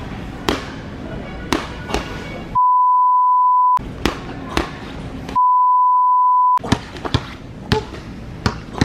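Two censor bleeps: a steady 1 kHz tone held for about a second each, a little after the start and again midway, cutting out all other sound while it plays. Around them, background music with sharp knocking hits.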